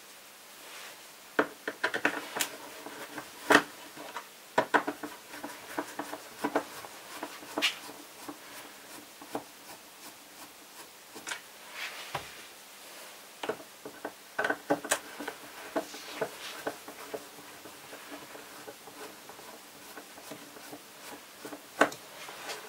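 Irregular clicks, taps and light rattles of small screws, a screwdriver and the plastic housing of a robot vacuum being handled on a work table.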